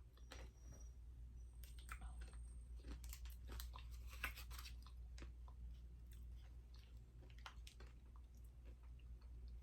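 A person chewing a chocolate popcorn truffle, with faint crunches and crackles that come thickest a couple of seconds in.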